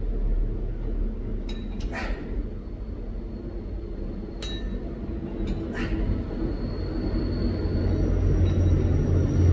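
A few sharp metallic clinks from the plates of a light plate-loaded dumbbell shifting on its handle during slow side raises, over a steady low rumble.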